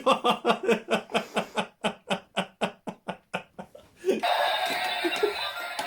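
A person laughing in quick pulses, about five a second. About four seconds in, a steady-hand wire game's buzzer sounds and keeps buzzing, louder than the laughter, which goes on faintly beneath it.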